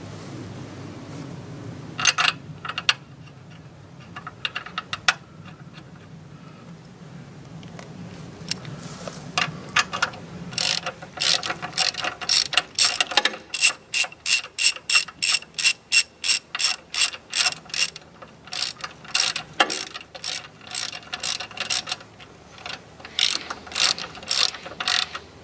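Hand socket ratchet clicking as frame-brace bolts are run down snug before torquing. It comes in short bursts at first, then a long run of quick strokes, about three or four a second, through the middle, then more short bursts near the end.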